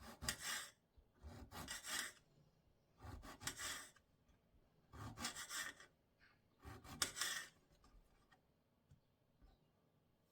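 Five rasping scrape strokes, each lasting under a second, coming about every one and a half to two seconds.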